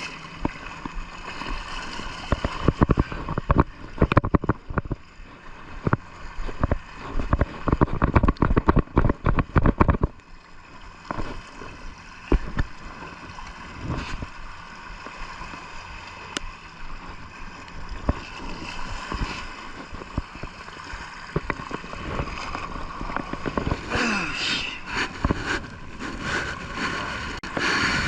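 Underwater sound of gurgling, bubbling water, with a dense run of clicks and knocks from about two to ten seconds in, over a steady motor hum.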